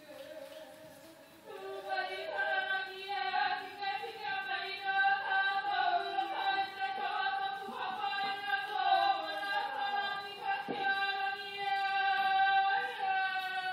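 A congregation singing a hymn in a large, echoing stone church, with long held notes; after a brief lull it comes in louder about a second and a half in.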